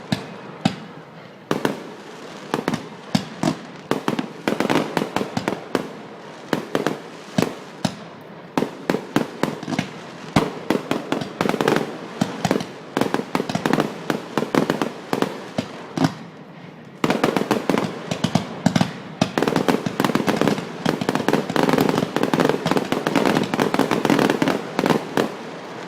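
Fireworks bursting in quick succession: a run of sharp bangs and crackles that thickens into a dense, almost unbroken barrage about two-thirds of the way through.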